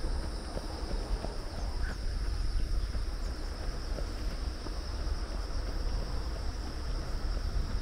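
Insects in the grass keeping up a steady high-pitched trill, over a low, uneven rumble of wind on the microphone.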